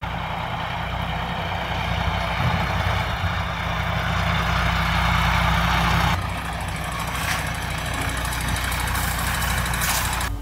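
Diesel engine of a MAN hook-lift lorry running at low speed as it drives slowly up a gravel lane, a steady low engine note with a hiss over it that lessens about six seconds in.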